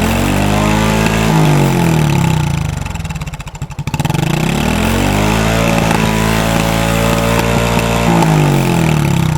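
Honda Super Cub C125's single-cylinder engine breathing through an SP Takegawa P-Shooter straight-through full exhaust, revved up from idle twice, the second rev held longer before dropping back. The note is loud and a little tinny and shrill.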